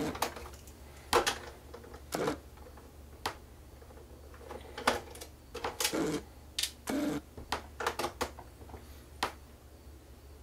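Irregular small clicks and knocks, about a dozen, from a screwdriver and screws working against the hard plastic housing of an upturned projector as the screws of its back panel are taken out and handled.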